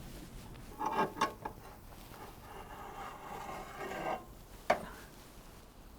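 A metal skillet being handled at the pizza oven: a few knocks about a second in, a scraping rub over the next few seconds, and one more knock near the end.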